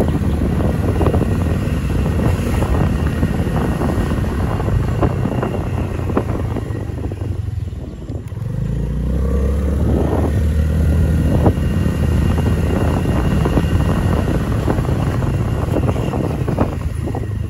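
Motorcycle engine running, heard from on the bike while riding a city street. It eases off and drops in loudness about halfway through, then picks up again as the bike pulls away.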